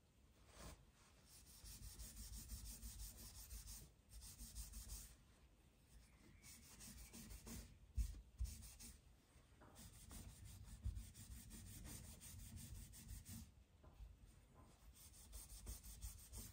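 A red abrasive pad rubbed back and forth over a silver-and-copper mokume gane ring: faint, scratchy rubbing in spells of a few seconds, with a sharp knock about halfway and a lighter one a little later.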